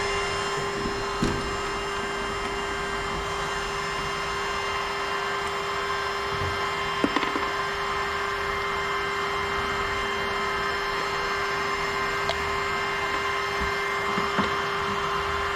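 A steady mechanical hum with a constant mid-pitched tone, broken by a few light clicks and taps.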